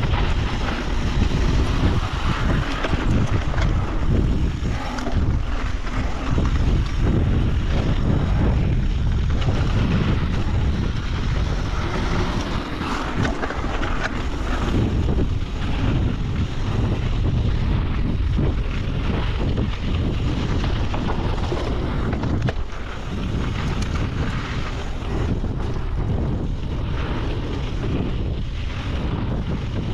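Wind buffeting the microphone on a mountain bike descending a dirt trail, over the steady rush of tyres on dirt, with frequent short rattles and knocks as the bike runs over bumps.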